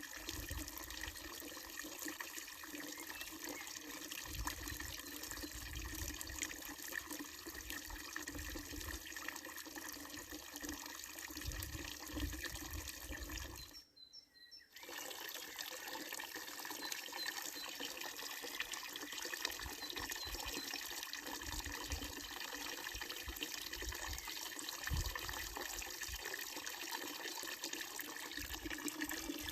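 Water running steadily from a wooden trough spout of an old village fountain and splashing into its basin, cutting out for about a second midway.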